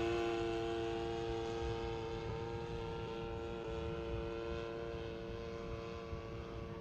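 Radio-controlled Seagull Models Super Decathlon 120 model airplane in flight, its motor and propeller making a steady drone at an unchanging pitch that slowly fades as the plane moves away.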